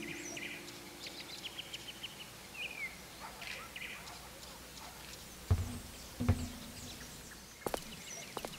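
Small birds chirping and twittering in short, high calls, after the last acoustic guitar chord fades out at the start. About halfway through come two low knocks, and near the end a few sharp clicks.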